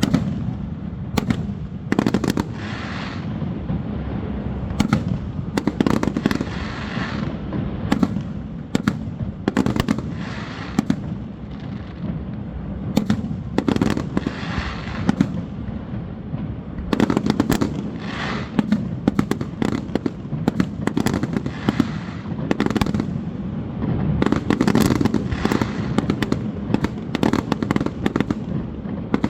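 Fireworks display: a continuous barrage of shell bursts and crackling reports, many sharp cracks a second in clusters over a steady low rumble.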